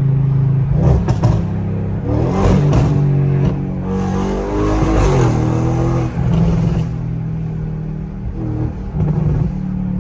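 Audi S8's twin-turbo V8, fitted with catless downpipes and a 5-inch intake, accelerating under throttle, its revs climbing and dropping several times.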